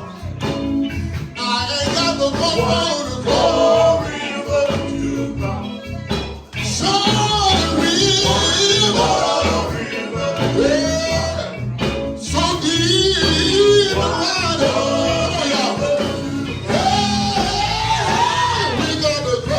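A song: singing over a band with a steady bass line, with brief breaks about a third of the way in and again around the middle.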